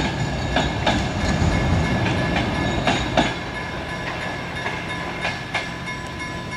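Regional passenger train's wheels clacking over the rail joints of a swing bridge as the last carriage rolls off. Over the first three seconds the clacks come thick over a rumble, then they thin out and the sound slowly fades as the train draws away.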